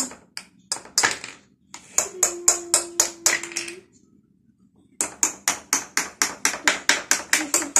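Small plastic hammers tapping the plastic ice blocks of a tabletop ice-breaking game: scattered sharp taps, a pause, then a fast run of about five taps a second from about five seconds in.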